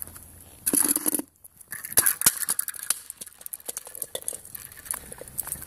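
Hard-shell firefighter helmet kicked across paving stones: a loud scuffing hit about a second in, then a string of hard clattering knocks and scrapes as the helmet bounces along the stones.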